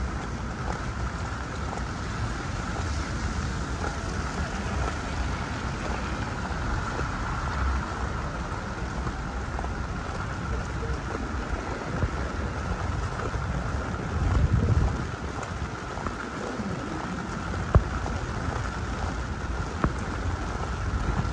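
Rain pattering steadily, with a low rumble swelling briefly about two-thirds of the way through and two sharp clicks near the end.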